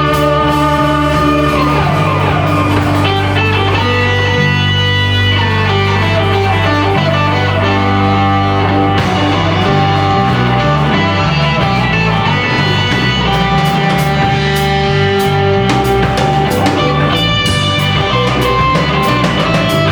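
Live rock band playing a guitar-led instrumental passage, with held guitar notes and pitch slides over a steady beat.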